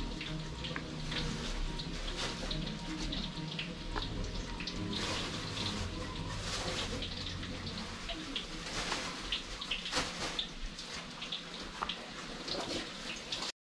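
Pisang goroho bananas frying in hot cooking oil: a steady sizzling hiss full of small crackles and pops. It cuts off suddenly near the end.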